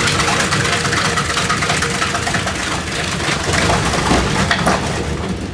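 2007 Weima WL 10 V-rotor single-shaft grinder running, its 68 hp motor driving the knife rotor as it shreds material: a steady drone with a dense crackle of small, sharp impacts.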